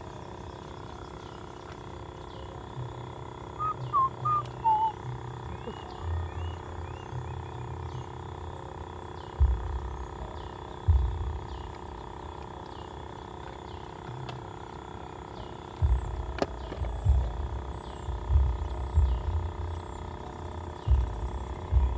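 Outdoor ambience: wind rumbling on the microphone in gusts, strongest from about nine seconds in and again in the second half, over a steady faint hum with repeated short bird chirps.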